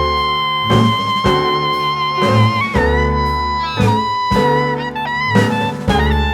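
Background music: a melody over a steady beat with guitar and other instruments.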